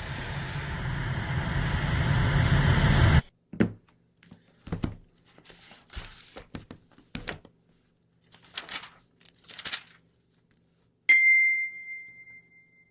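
A rising whoosh that swells for about three seconds and cuts off sharply, followed by a few soft rustles and clicks, and near the end a single bright, bell-like ding that rings out.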